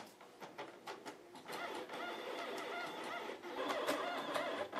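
A few keyboard clicks, then about one and a half seconds in the 3D printer's standard stepper motors start moving, their tones warbling up and down in pitch as the axes travel. This is the usual stepper noise of conventional current control, the mode before the silent stealthChop is switched on.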